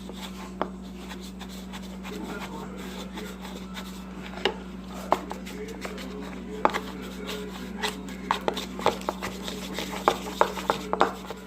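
A spoon knocking and scraping in a bowl as a flour-and-sugar-water dough is stirred, with irregular clicks that grow more frequent in the second half. A steady low hum runs underneath.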